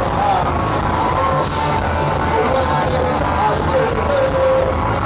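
Psychobilly band playing live: a male lead vocal over electric guitars and drums, with cymbal hits on a steady beat.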